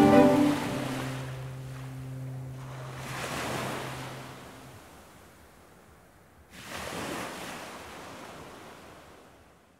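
Sea waves washing on the shore, two swells, the second breaking sharply about six and a half seconds in, then fading out. The last held chord of the soundtrack music dies away under the first wave.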